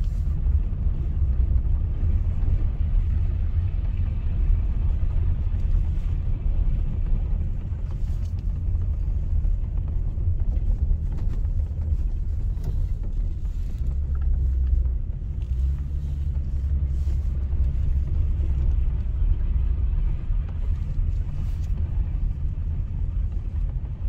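A steady low rumble with faint scattered ticks above it.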